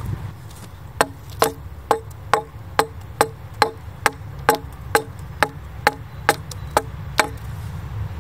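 Axe hewing the edge of a split red oak board with about fifteen quick, evenly spaced blows, roughly two a second. Each blow is a sharp knock with a short ringing tone from the board. The blows start about a second in and stop about a second before the end.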